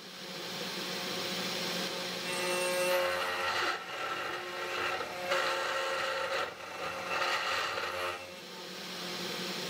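CNC 3018 Pro Max desktop mill cutting a deep groove into a clear acrylic block with an end mill: a steady spindle motor whine under a cutting noise that swells and eases every second or two as the tool works along the groove.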